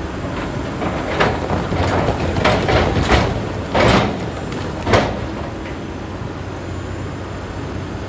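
Heavy construction machinery engine running steadily, with about six short rushing noise bursts between about one and five seconds in.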